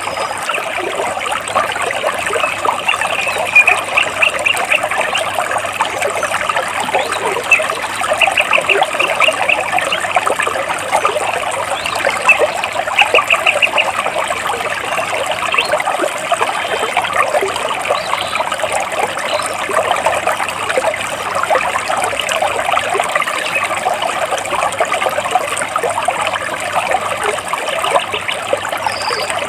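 Stream water trickling and splashing steadily over rocks. A bird gives several short, rapid trills over it.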